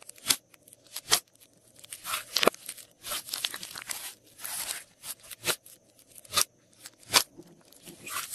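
Glossy slime being kneaded, pressed and stretched by hand: irregular sharp pops and clicks, about one a second, with a few short stretches of crackling and squishing as it is worked and pulled apart.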